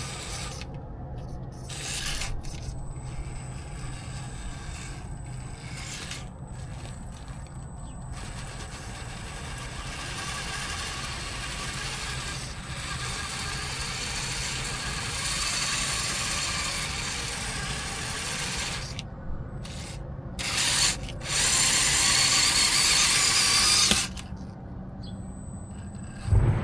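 Axial Capra RC rock crawler's electric motor and geared drivetrain whirring under throttle, cutting out briefly several times as the throttle is let off, with a louder stretch near the end.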